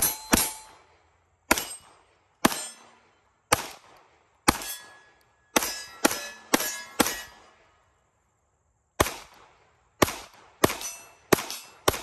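An uneven string of about fourteen 9mm pistol shots from a SAR USA P8L, each followed by the ringing ding of a steel target being hit. There is a pause of nearly two seconds about two-thirds of the way through.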